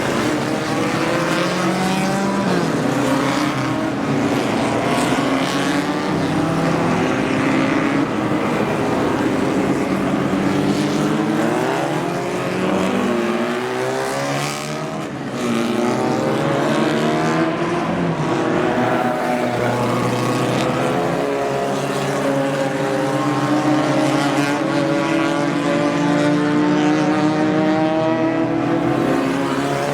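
Several racing car engines running hard at once, their notes overlapping and rising and falling as the cars accelerate and change gear.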